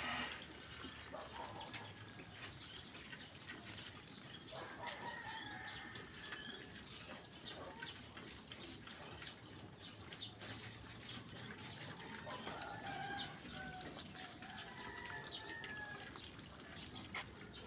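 Pigs eating wet feed off a concrete floor: a steady run of small chewing and snuffling clicks. Chickens cluck a few times in the background.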